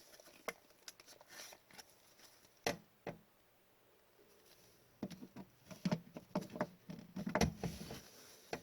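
Trading cards being handled on a table: scattered light clicks and taps, two sharp clicks close together near three seconds in, then a busier stretch of tapping and rustling from about five seconds on.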